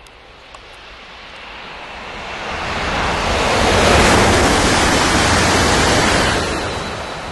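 High-speed train passing at speed: a rushing noise with a low rumble underneath swells to a peak a few seconds in, holds for about two seconds, then fades away.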